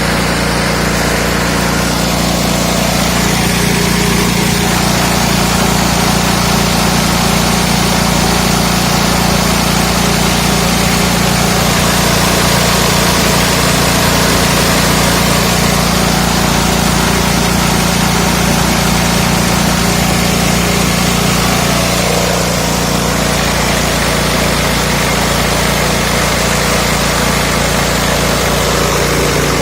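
A small 5.5 hp single-cylinder petrol engine running steadily, driving a mini rice huller, with a constant low hum under a dense hiss from the milling machine.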